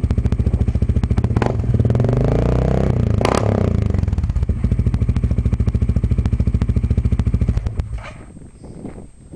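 Suzuki KingQuad 750 ATV's single-cylinder engine through an aftermarket LRD exhaust, idling with an even loping pulse, revved once about two seconds in and falling back to idle. About eight seconds in the engine is shut off and stops abruptly.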